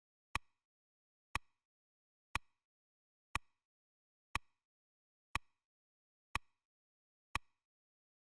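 Quiz countdown timer tick sound effect: eight short, sharp ticks, evenly one second apart.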